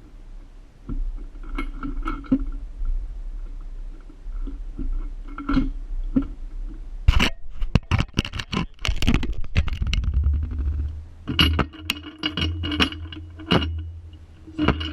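Bolt cutters working on a hardened padlock shackle: sharp metallic clicks and scrapes of steel jaws and handles, with a dense run of loud clicks about halfway through and more later. A low steady hum joins about two-thirds of the way in. The shackle steel is hard enough to resist the cut.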